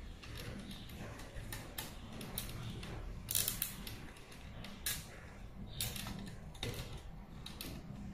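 Hands handling fiber cables and a cable tie inside the plastic base of a dome fiber optic splice closure: scattered small plastic clicks and rustling, with a quick run of sharper clicks a little over three seconds in and single clicks near five and six seconds.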